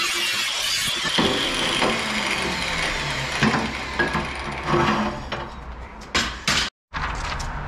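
Angle grinder cutting through steel plate, then switched off about a second in and winding down with a falling whine. Several sharp metallic clanks follow as the cut steel pieces are handled on a steel workbench.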